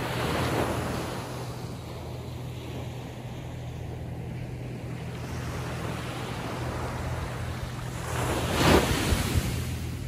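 Atlantic Ocean surf breaking on the shore: a steady wash of waves, with one wave crashing just after the start and a louder crash near the end.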